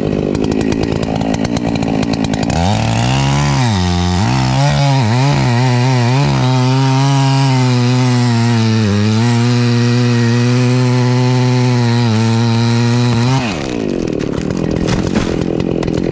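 A chainsaw idles, then is throttled up about two and a half seconds in and cuts into a tree trunk. Its pitch dips and wavers as the chain bites, then holds steady at full revs. Near the end it drops back to idle.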